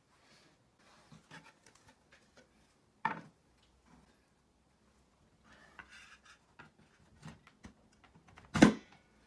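Handling sounds of a plywood sled and a Makita circular saw on a table: light taps, scrapes and rubs, a sharp knock about three seconds in, and a heavier clunk near the end as the saw's metal base is set down on the wooden sled.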